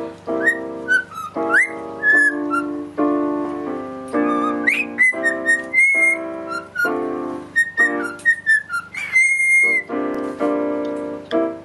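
A cockatiel whistling short gliding notes along with chords played on an electronic keyboard, with one longer held whistle about nine seconds in.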